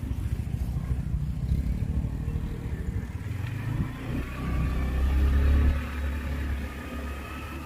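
Motor vehicle engine running with a low rumble. It swells to its loudest about five seconds in, then eases off.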